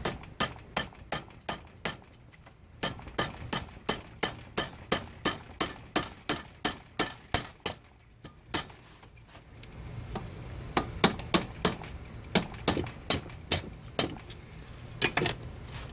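Light, repeated hammer taps driving a bronze throttle-shaft bushing into a Carter carburetor body, about four taps a second in runs, with two short pauses and sparser, uneven taps near the end.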